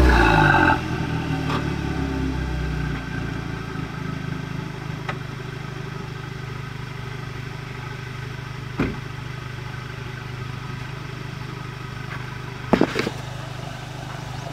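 2012 Volkswagen MK6 GTI's turbocharged 2.0-litre four-cylinder, breathing through a catless 3-inch downpipe and AWE Tuning 2.5-inch cat-back exhaust, dropping off the throttle as the car rolls to a stop, then settling into a steady idle. Two short sharp knocks, about nine seconds in and again near the end.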